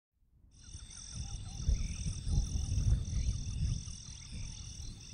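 Night-time roadside ambience fading in: insects chirring in steady high-pitched pulses, with short repeated frog calls and a low rumble that swells in the middle and eases off.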